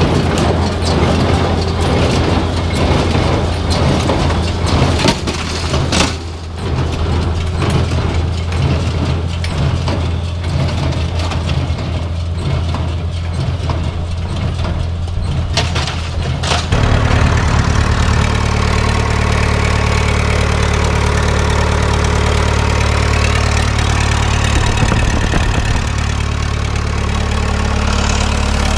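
Tractor engine running under a rapid mechanical clatter of clicks and knocks, like a hay baler at work. About 17 seconds in this changes abruptly to a steady tractor engine idling.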